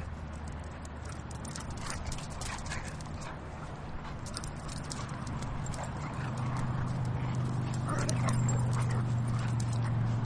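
Two dogs play-fighting on asphalt, their claws and paws scrabbling and clicking in many quick, irregular taps. A steady low hum comes in about halfway and grows louder toward the end.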